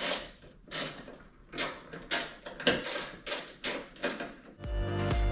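A run of short scraping and rubbing strokes, about two a second at irregular spacing, from hands working the headlight assembly and starting its mounting bolts loosely. Background music with a bass line comes in near the end.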